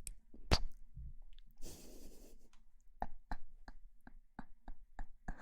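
Close-miked ASMR trigger sounds: one sharp click, a short rustle, then a run of soft clicks or taps, about three a second.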